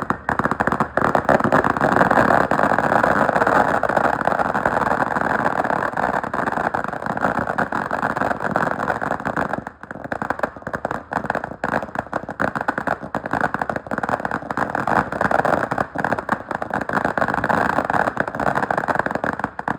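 Fireworks going off in a dense, continuous crackle of rapid pops, with a brief lull about ten seconds in.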